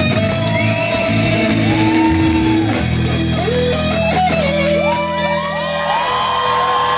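Live rock band playing, led by an electric guitar holding long notes that bend up and down in pitch over drums and a steady low backing.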